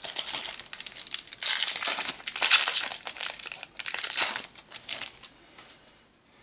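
Foil wrapper of a Panini Adrenalyn XL trading-card booster pack crinkling and tearing as it is opened by hand, in a run of crackly bursts that dies away about five seconds in.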